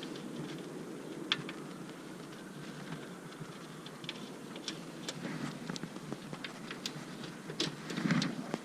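Scattered light clicks and taps of screws and hand tools being handled while the headlight assembly's screws are put back in, over a low steady background.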